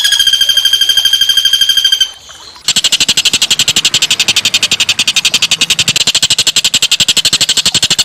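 Small songbird's song: a fast, even trill at one steady pitch that stops about two seconds in, then after a short pause a harsher, rapid rattling trill that runs on.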